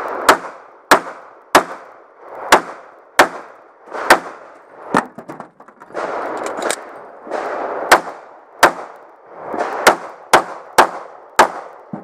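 Walther PPQ pistol firing about a dozen shots in two strings of six, each string paced roughly one shot every 0.6 to 0.9 seconds, with a gap of about three seconds between them. Each shot is loud and sharp, with echo trailing after it.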